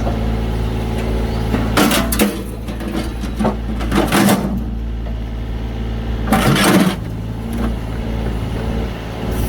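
Excavator engine running steadily, with three loud bursts of clattering, scraping noise about two, four and six and a half seconds in.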